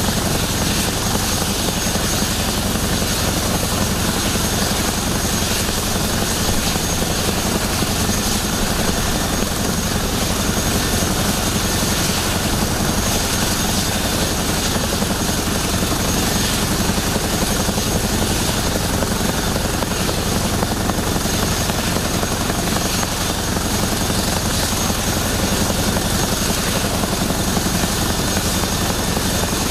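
Boeing CH-47 Chinook with its twin Lycoming T55 turboshaft engines running and tandem rotors turning: a loud, steady rotor beat with a thin high turbine whine over it.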